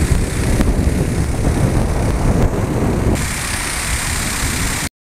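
DJI T10 agricultural drone's spray system running in a test spray: pump and spinning centrifugal nozzles with a steady hiss of spray over a low rumble. About three seconds in the rumble drops and the hiss gets brighter, and the sound cuts off abruptly near the end.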